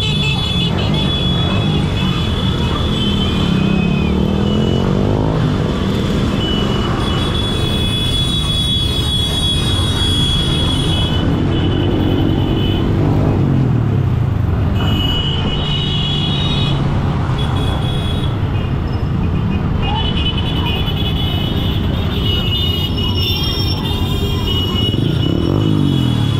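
Motorcycle engines running in a moving convoy, heard from a rider's own bike with air rushing past; the engine pitch rises and falls several times as speed changes. Shrill steady tones come and go every few seconds over the top.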